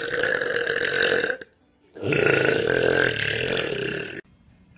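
A girl's long, drawn-out burps. The first runs on from before and ends about a second and a half in; after a short pause a second one lasts about two seconds and cuts off suddenly.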